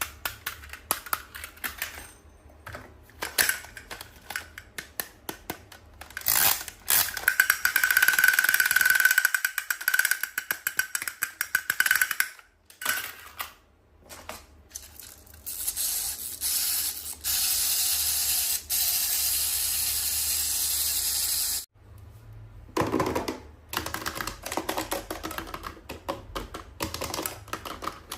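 Toys and plastic packaging being handled: rapid small clicks and taps. Two longer, loud stretches of hissing noise sit in the middle, the first carrying a steady high tone.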